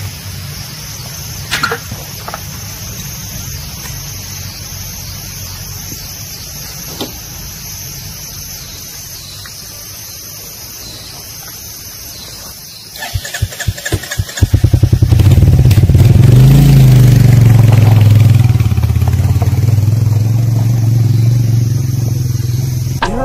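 Low steady hum with a few light clicks, then a Royal Enfield Hunter 350 motorcycle's single-cylinder engine is started about 13 seconds in: a run of quickening firing pulses that catches and runs steadily and loudly, with a short rev a few seconds after it catches.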